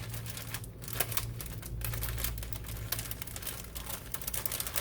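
Spring roll pastry sheets and their plastic packet being handled: a rapid, irregular run of light crinkles and clicks over a low steady hum.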